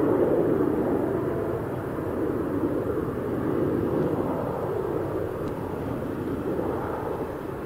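An airliner's engines passing, a steady rushing rumble that is loudest at the start and slowly fades.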